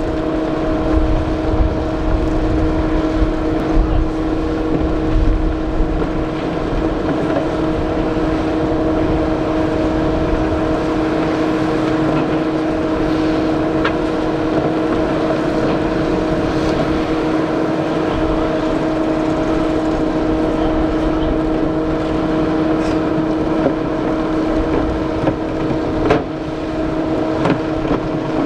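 Steady hum of a camera drone's propellers, one unchanging pitch with overtones, over a low rumble of wind on its microphone.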